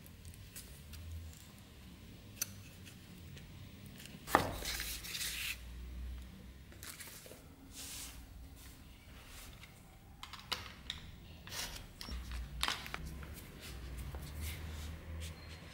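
Workbench handling sounds: a metal scabbard fitting clicking as it is worked onto the leather, then a utility knife slicing thin leather strips along a steel ruler. Scattered clicks, taps and short scraping cuts, with one sharp knock about four seconds in.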